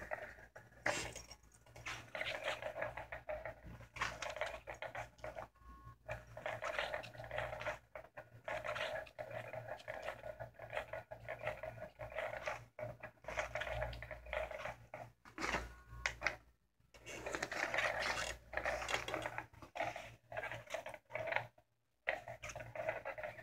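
Battery-powered cat toy's small motor whirring in irregular stop-and-start spells of a second or two under its fabric cover, with the cloth rustling as the toy's arm sweeps beneath it.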